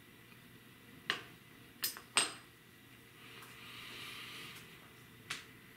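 A man tasting hot sauce: a few sharp clicks in the first couple of seconds and one more near the end, with a soft, long breath out in the middle.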